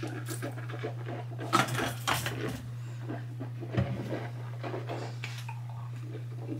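Small hard objects clattering and knocking as they are handled, loudest in a burst a couple of seconds in and one knock near the middle, over a steady low hum.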